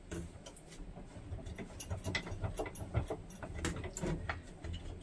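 Scattered light clicks and knocks of a tool, its dust-extraction hose and a piece of wood being handled and set up at a workbench vice, at an irregular pace.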